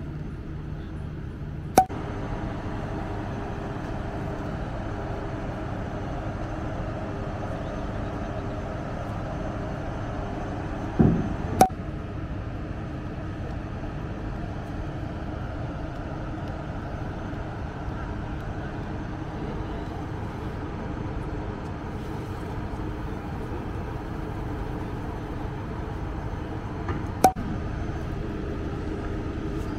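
Steady drone of the ferry M/V Esperanza Star's engines heard on board, a low hum under an even rush of noise. Three sharp clicks break through it, and a short thud comes just before the middle click.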